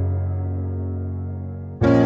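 Slow background music: a sustained chord slowly fading, then a new chord coming in near the end.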